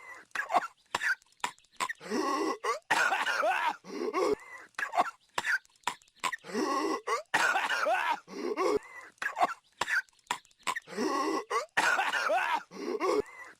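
A cartoon character coughing in an exaggerated, hacking fit. A long rasping bout comes about every four seconds, with short single coughs in between, repeating as a loop.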